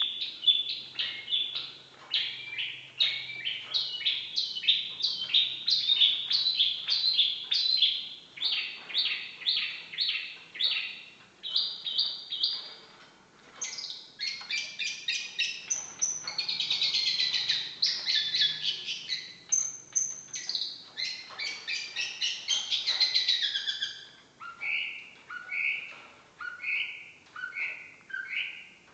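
Long-tailed shrike (cendet) singing a varied run of short, sharp notes repeated about twice a second. Around the middle it turns into a dense, fast warble, then returns to short falling notes near the end.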